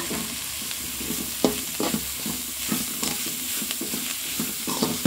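Metal spoon stirring and scraping bitter gourd stir-fry with grated coconut around a metal pan, in irregular strokes that begin about a second and a half in, over a steady sizzle of the frying food.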